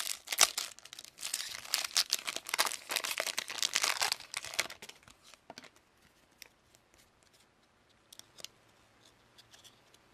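A trading card pack wrapper being torn open and crinkled, with crackly rustling for about the first five seconds, then a few faint clicks as the cards are handled.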